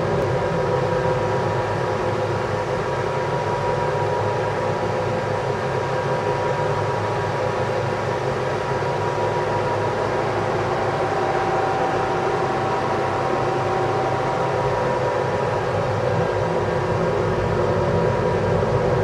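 Steady mechanical drone with several held tones underneath, unbroken and without rhythm.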